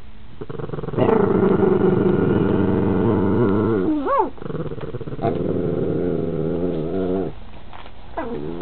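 Puppies growling and whining at each other in a squabble over a half-eaten sandwich: a long low growl starting about a second in, broken by a short rising-and-falling whine, then more growling, and another whine near the end.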